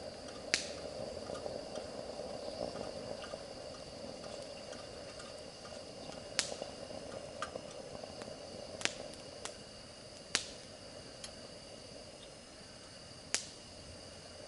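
Night ambience of steady, high-pitched insect calls, with five sharp clicks or pops a few seconds apart.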